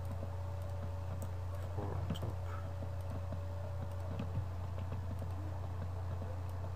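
A steady low electrical hum with a faint steady whine above it. A few soft computer-mouse clicks come through at irregular intervals as polygons are selected.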